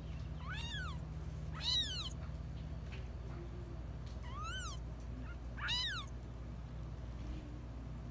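Nine-day-old kittens mewing: four short, high-pitched cries, each rising and then falling in pitch, the isolation calls of neonatal kittens left alone without their mother. A steady low hum runs underneath.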